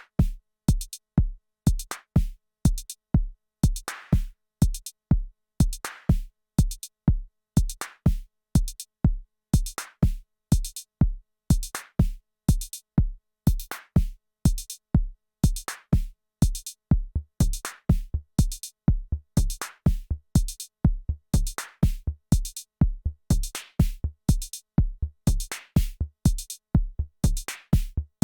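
Arturia DrumBrute Impact analog drum machine playing a steady looping beat: a deep kick drum hit several times a second, bright hi-hat ticks between the kicks, and a noisier snare-like hit about every two seconds.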